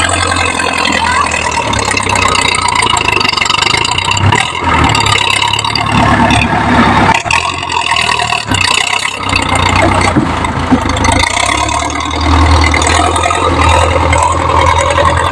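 Ford New Holland 6640 tractor's diesel engine running steadily under load as its front blade pushes soil, with a strong low hum.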